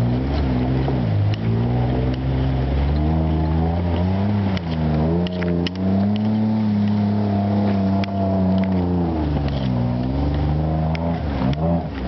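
Tugboat engine running, its pitch dipping and rising again several times as the speed changes, with a few light clicks over it.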